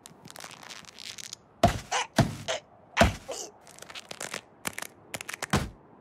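Cartoon sound effects: a string of short, sharp thuds and knocks, with the loudest ones clustered near the middle.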